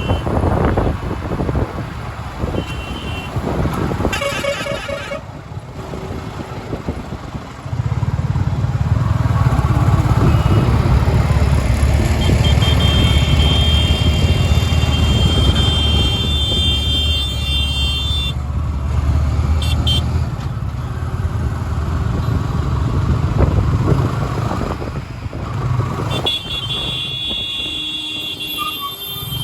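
Busy city street traffic: engines and motorbikes running, with horns honking repeatedly. From about eight seconds in, a large vehicle's engine runs loud and close for some twelve seconds, while a long horn blast sounds; another long horn blast comes near the end.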